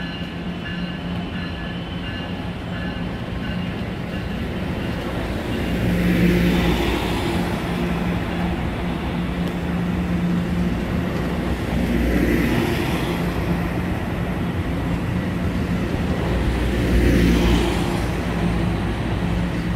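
Train on the rails: a steady low diesel engine hum, with three rising-and-falling swells of rolling rail noise about six, twelve and seventeen seconds in.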